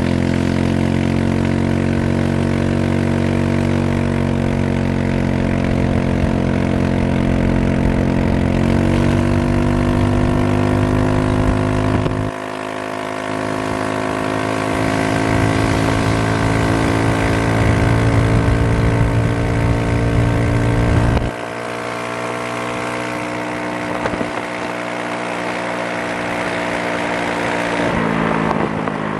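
GY6 150cc single-cylinder four-stroke scooter engine with a straight-pipe exhaust, running under way. The engine note climbs about 9 seconds in, and the low rumble drops off abruptly twice, around 12 and 21 seconds in, each time building back up. The note falls near the end.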